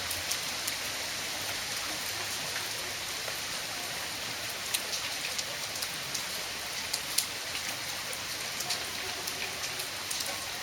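Heavy rain falling steadily, a dense hiss with many sharp ticks of drops striking hard surfaces.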